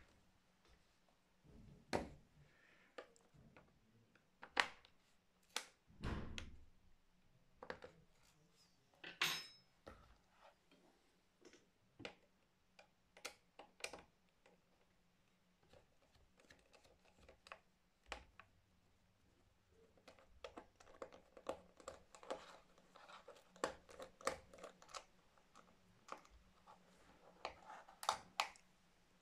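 Faint, scattered clicks and knocks of a screwdriver and small screws being worked out of a plastic laptop base and set down, with one louder knock about six seconds in and a brief scrape near nine seconds. Past the two-thirds mark the clicks come thicker and faster, small and rattly.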